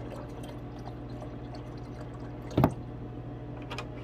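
Nitric acid poured from a plastic jug into a glass beaker of hydrochloric acid and silver scrap, a trickling liquid pour over a steady low hum. A single sharp knock, the loudest sound, comes about two-thirds of the way through, with a smaller click near the end.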